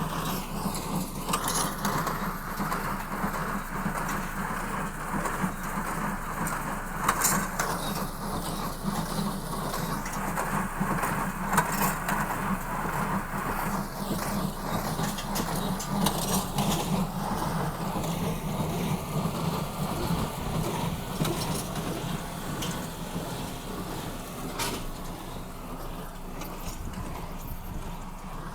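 Combine harvester running steadily while harvesting wheat: a constant low engine hum under the whirr of the machinery, with an occasional sharp tick.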